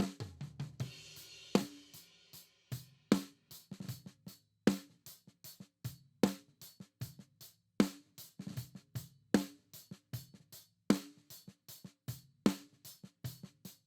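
Recorded drum kit playing back a slow, steady beat through a compressor plugin: a strong snare-type hit about every second and a half, with kick and hi-hat strokes between.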